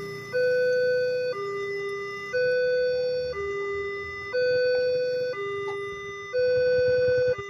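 Railway level-crossing electronic warning sounder giving a two-tone alarm. A higher and a lower tone alternate about once a second, steady and evenly spaced, warning of an approaching train while the barriers come down.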